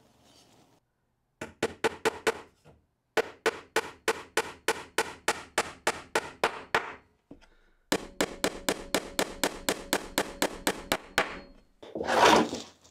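Claw hammer tacking nails into a wooden support, in three runs of quick, light strikes, about five or six a second, the first short and the other two of around twenty strikes each. A short rustle of the wood being handled comes near the end.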